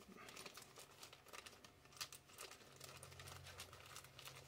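Scissors snipping at a thin plastic comic bag, with faint crinkling and small crackles of the plastic. The scissors are cutting poorly, chewing at the bag rather than slicing cleanly.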